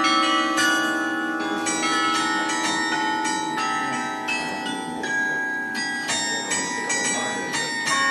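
Church carillon bells playing a melody, played from the baton keyboard: a quick run of struck notes, each ringing on under the next.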